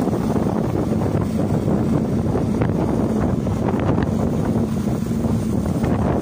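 A boat's engine running steadily, with wind buffeting the microphone.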